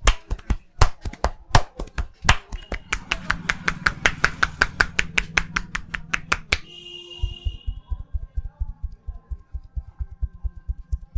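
Hands striking a person's head in a barber's tapping massage: a few sharp slaps, then a fast run of chopping taps at about ten a second. About two-thirds of the way in, the striking turns to softer, duller, quick patting.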